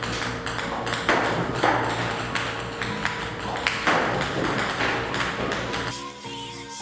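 Table-tennis balls fired from a ball-launching robot, clicking sharply as they bounce on the table and off a cat's paws, about two or three irregular clicks a second; the clicking stops near the end.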